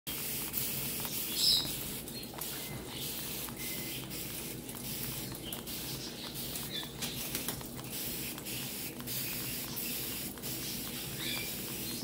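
Tap water running into a stainless steel sink while a Superb Parrot splashes and flaps its wet wings under the stream, with a patter of droplets and a few brief high chirps in the first few seconds.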